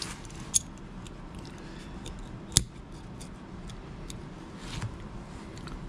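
Small metal parts of an out-the-front automatic knife clicking and ticking as they are handled and fitted together during reassembly, with two sharper clicks, one about half a second in and one about two and a half seconds in.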